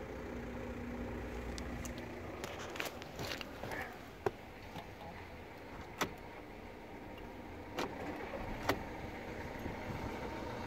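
A few sharp clicks of the ignition key and switches in the cabin, then the 1.6 TDI four-cylinder diesel starts and settles to idle at about 1000 rpm in the last couple of seconds.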